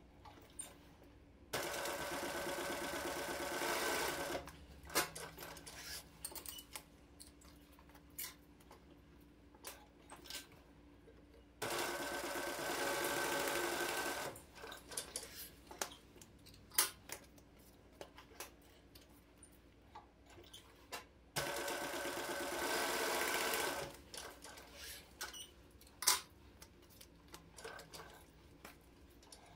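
Industrial post-bed sewing machine stitching alligator leather, running in three bursts of about two and a half seconds each. Short clicks and handling noises come between the bursts as the work is repositioned.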